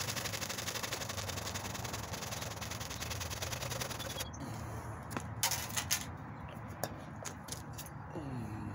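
Hand saw cutting through a wooden stick in quick, even back-and-forth strokes. It stops about four seconds in, and a few sharp knocks follow.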